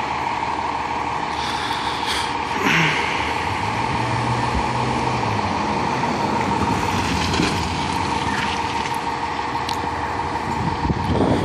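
Fire engine idling steadily, with short hisses of air about two seconds in.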